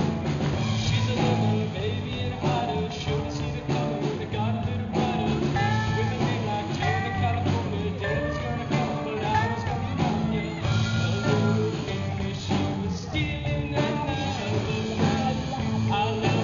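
Rock song with a male voice singing over distorted electric guitars, bass guitar and a drum kit.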